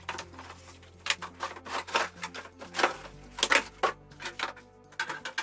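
Cardboard packaging being handled as a boxed electric convector heater is unpacked: cardboard flaps rustling and scraping, and the heater drawn out of its molded pulp inserts, with many short knocks and taps.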